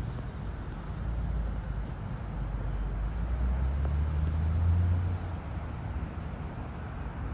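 Low engine rumble of a passing vehicle that swells to its loudest about four to five seconds in and then fades, over the steady hum of the city outdoors.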